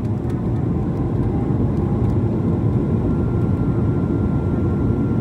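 Cabin noise of an Airbus A220-100 with its Pratt & Whitney PW1500G engines running. The rumble grows louder over the first second or so, then holds steady, and a thin steady whine joins it about three seconds in.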